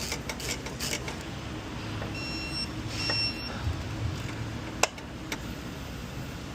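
Small metallic clicks and handling noises as a part goes back in during an oil change, over a steady workshop hum. Two short high electronic beeps come about two and three seconds in, and a single sharp click, the loudest sound, comes just before the five-second mark.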